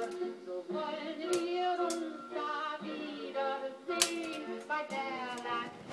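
Keys of an old typewriter striking as single sharp clacks: one about a second and a half in, one near two seconds, and a quick cluster around four seconds. Music with singing plays underneath throughout.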